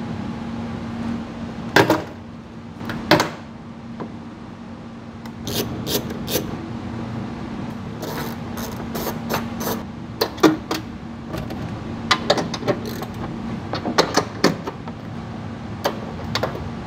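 Hand ratchet clicking in quick runs as 10 mm bolts and nuts are backed out, with a few louder single knocks of tool and metal parts. A steady low hum runs underneath.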